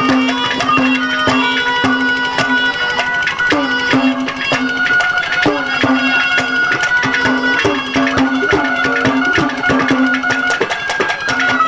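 Instrumental interlude of Haryanvi ragni folk music: a harmonium holds a melody line with short breaks over rapid, continuous hand-drum strokes.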